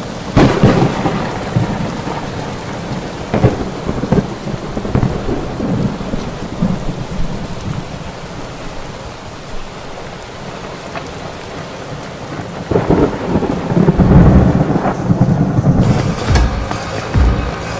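Steady heavy rain with rolling thunder: a rumble about half a second in, smaller ones a few seconds later, and a long loud peal near the end.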